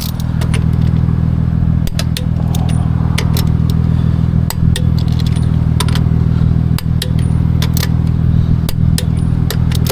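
A vehicle engine running steadily, with irregular sharp metallic clinks and clatter from lug nuts and tools being handled.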